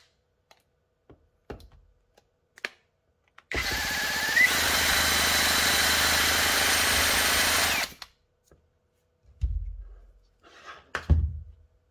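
Cordless drill spinning the crankshaft of a 9cc four-stroke V-twin model engine to crank it for starting, running steadily for about four seconds from a few seconds in and stopping abruptly. A couple of thumps follow near the end as the engine is handled.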